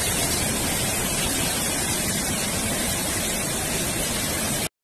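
Muddy floodwater torrent rushing past in a steady, dense rush of water. The sound cuts off abruptly near the end.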